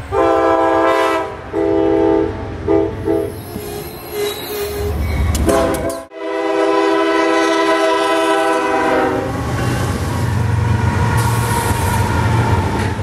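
Diesel locomotive air horn sounding several blasts, then after an abrupt cut one long blast, followed by the low rumble of a passing train.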